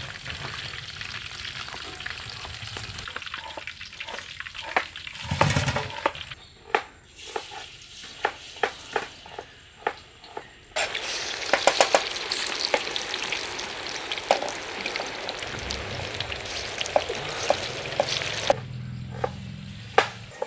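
Food sizzling in a hot pan while being stirred, with repeated sharp clicks of a metal utensil against the pan. The sizzle drops away for a few seconds, leaving only the clicks, then comes back loud about halfway through.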